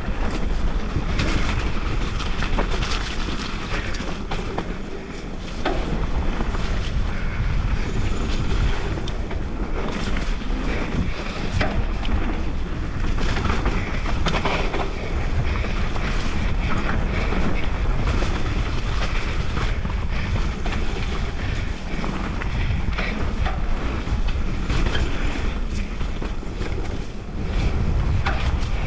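Wind rushing over a GoPro's microphone while a Giant Reign mountain bike descends a dirt trail, with tyres on dirt and frequent knocks and rattles from the bike. The level dips briefly about five seconds in and again near the end.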